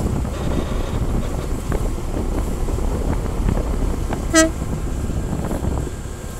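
Steady low rumble of a boat under way, with wind on the microphone, and one short horn toot about four seconds in.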